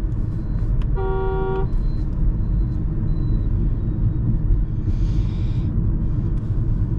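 Steady road and engine rumble inside the cabin of a moving Mahindra XUV 3XO, with a vehicle horn sounding once, briefly, about a second in.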